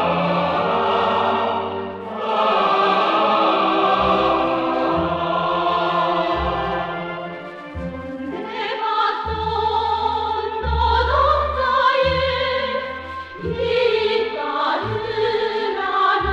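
A choir singing a slow operatic piece, with voices holding long notes over a low instrumental bass that starts and stops in phrases.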